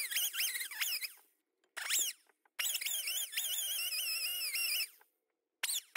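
High-pitched squeaky chatter in short spurts, cut off abruptly by silent gaps: a voice played back fast-forward, so that it sounds like a chipmunk.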